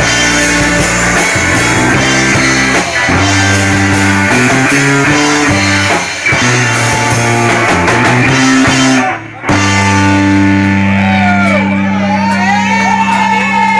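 Rock music playing loud, with a stepping bass line under guitar chords. It cuts out briefly about nine seconds in, then returns on a long held chord with sliding high notes over it near the end.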